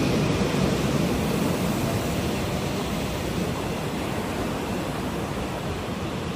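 Electric commuter train rolling past close by: a steady rush of wheel and running noise on the rails, easing slightly.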